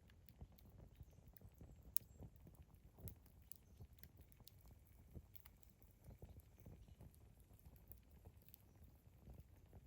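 Wood campfire burning: a faint low rumble of the flames with irregular sharp crackles and pops, one louder pop about two seconds in.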